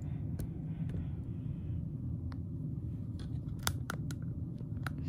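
Steady low hum of an idle embroidery machine with its projector on, with a few light, sharp clicks scattered through.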